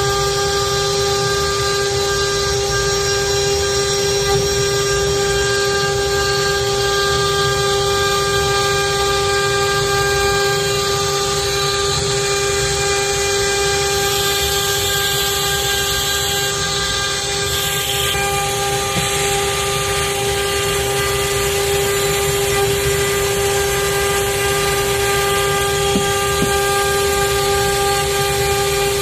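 CNC wood router spindle running at a constant speed with a steady high whine, over the hiss of the bit cutting wood. The hiss shifts briefly about halfway through while the whine holds its pitch.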